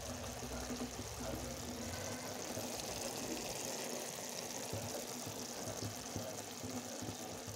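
Fish curry with potato and tomato simmering in a kadai: a steady, soft sizzling hiss, with a low hum that fades out about a second and a half in.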